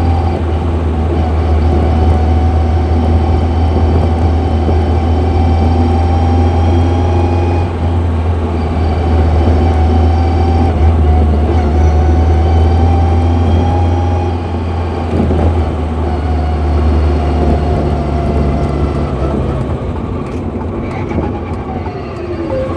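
Car driving slowly in gear: a steady engine and road drone under a high, wavering whine from the H1R4 gearbox that rises and falls with road speed. The whine is the sign of a whining, worn gearbox. Near the end the whine falls in pitch as the car slows.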